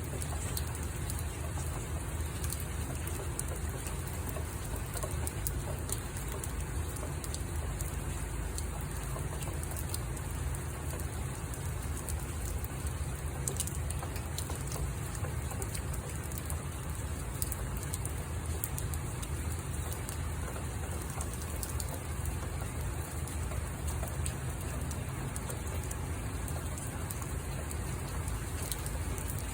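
Steady rain falling, with scattered drops ticking on a hard surface.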